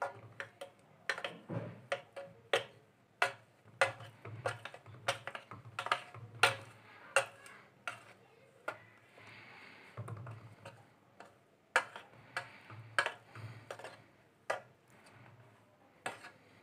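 Plastic dough scraper patting and smoothing thick semolina batter in a round metal baking pan: a run of sharp, irregular taps and clicks, about one or two a second, with a short scrape around nine seconds in.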